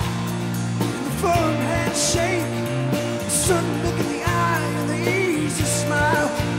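Live rock band music: an acoustic guitar strummed under held chords, with a lead melody that slides and bends between notes and three cymbal crashes.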